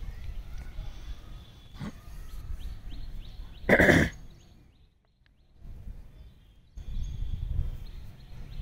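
Wind rumbling on the microphone, with small birds chirping faintly. About four seconds in comes one short, loud cry, followed by a brief lull.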